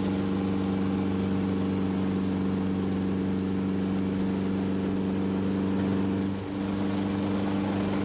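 Helicopter's engine and rotor droning steadily, heard from on board. The level dips briefly about six seconds in.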